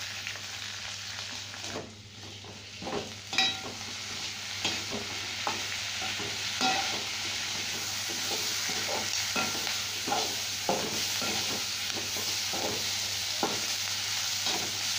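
Leaves and vegetables sizzling in hot sesame oil in an aluminium kadai, a steady hiss, while a steel ladle scrapes and knocks against the pan as they are stirred and sautéed. The sizzle grows louder and steadier after about three seconds.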